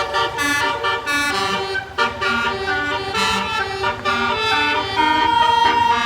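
Bus musical 'telolet' air horn (basuri type), several horn trumpets playing a quick tune whose notes change every fraction of a second, then holding one long chord near the end.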